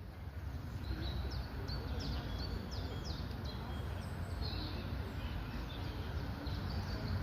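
A bird singing: a run of short, high notes, each sweeping quickly downward, repeated several times, over a steady low rumble.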